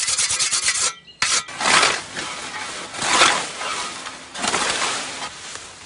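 A whetstone drawn in rapid strokes along a scythe blade, sharpening it, for about the first second. Then a scythe cuts through stinging nettles in long swishes, about one every 1.3 seconds.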